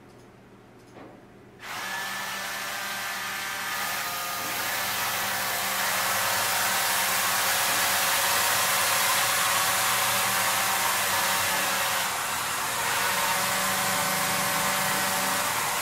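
Motors of a homemade six-axis motion-control camera rig running as they drive the camera to its next position: a steady whine of several tones over a hiss. It starts about a second and a half in, grows louder a couple of seconds later and dips briefly near the end.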